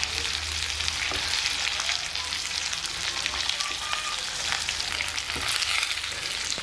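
Stuffed brinjals sizzling and crackling in hot oil in a kadhai as they are sautéed and turned, with a few knocks of the spatula against the pan.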